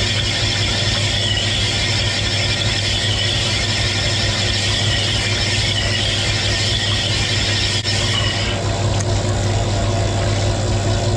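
Cylinder honing machine running, its stone hone stroking up and down inside a Yamaha XT500 cylinder bore under a flow of honing oil, over a steady motor hum. This is the final honing of the rebored cylinder, with about two thousandths of an inch left to come out. The higher hiss of the honing drops away about eight and a half seconds in while the hum carries on.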